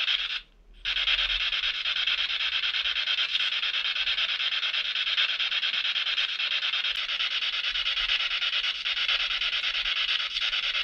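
Spirit-box radio sweep: a steady stream of rapidly chopped radio static with a fast flutter, cutting out briefly about half a second in.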